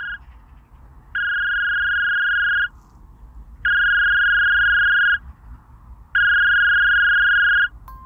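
Electronic telephone ringing tone: one steady high beep held about a second and a half, repeated three times with about a second's gap between, the last of an earlier ring cutting off right at the start.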